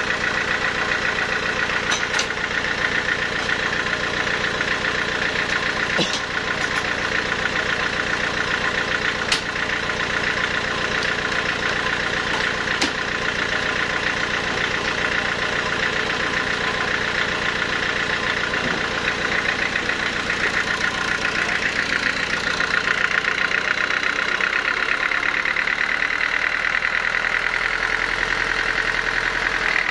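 Sawmill machinery running steadily, a continuous mechanical drone with a strong high hum, broken by a few brief clicks.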